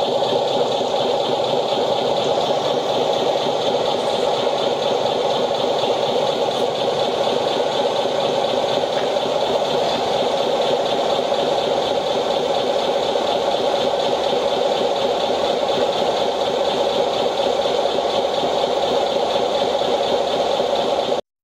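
RC model fire trucks pumping water, a steady mechanical drone from their pumps with the hiss of the monitor jets spraying. It cuts off abruptly just before the end.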